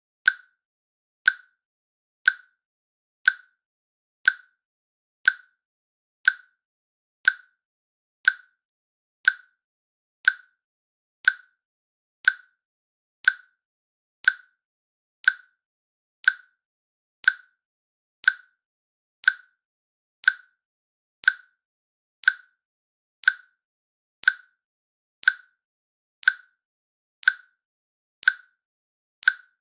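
Countdown timer's click sound effect: short, sharp clicks evenly spaced one per second, ticking off each second of the countdown.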